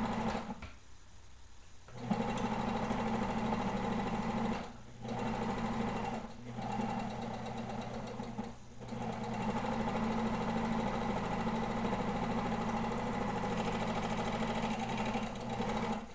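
Serger (overlock sewing machine) running steadily as it overlocks the seams of a knit beanie. It stops for about a second near the start, pauses briefly three more times in the middle, then runs on steadily.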